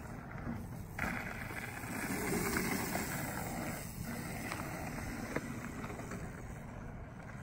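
Bicycle tyres rolling over packed dirt as the rider passes close by, a steady rushing noise that swells about a second in, with a few small clicks.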